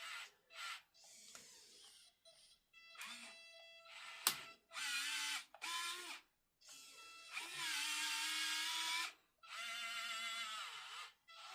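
Small electric motors and gearboxes of a 1:50 scale RC excavator and loader whining in short start-stop bursts as the machines move, with one sharp click about four seconds in.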